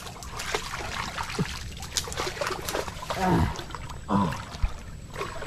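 Shallow creek water trickling and splashing, with scattered small clicks and splashes, as freshwater clams are picked by hand from the creek bed. Two short falling vocal sounds come about three and four seconds in.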